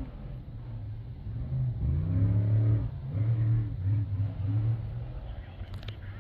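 Off-road race vehicle's engine revving up about two seconds in, then coming off and back on the throttle in four or five short pulses before dying down.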